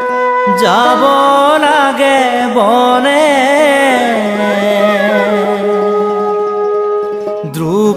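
Bhaona devotional singing: one voice drawing out long, wavering, ornamented notes over a steady held instrumental tone, pausing briefly near the end.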